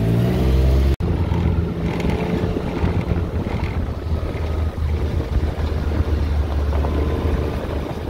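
Small farm utility vehicle's engine running steadily as it drives along a dirt track, with a momentary dropout about a second in.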